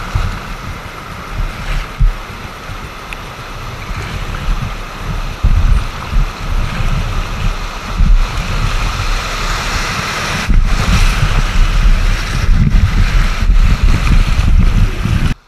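Rushing whitewater of a river rapid heard from the bow of an inflatable boat, with heavy wind and buffeting rumble on the microphone. It cuts off suddenly near the end.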